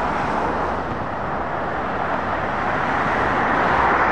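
Steady road-traffic noise from cars and a Volvo FH 500 lorry, with tyres on the carriageway. It grows a little louder near the end as the lorry draws close.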